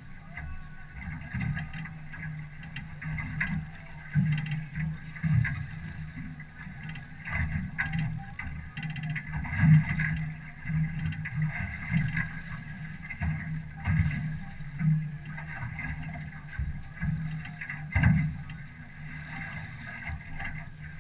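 Water slapping and knocking against the hull of an aluminum fishing boat, in irregular bumps and splashes.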